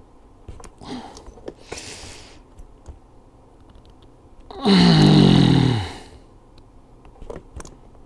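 A man's strained groan of effort, about a second long and falling in pitch, as he forces a rubber fuel line onto the fitting of a primer bulb. Faint clicks and rubbing of the hose and fittings in his hands come before and after it.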